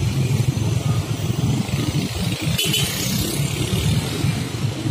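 Many small motorcycles and scooters riding past close by, their engines running together in a steady mix of traffic noise.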